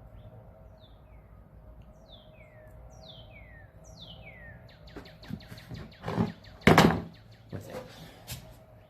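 A bird gives a quick run of downward-sliding chirps. From about five seconds in come crinkly rustles and scrapes of double-sided tape being handled, with two loud bursts near seven seconds.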